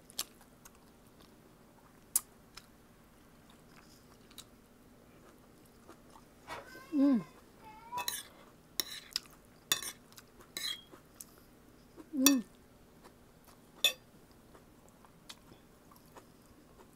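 Mealtime eating sounds: a spoon and fork clinking now and then against a plate, and chewing. A cluster of clicks comes around the middle, and a short falling hum from the eater is heard twice.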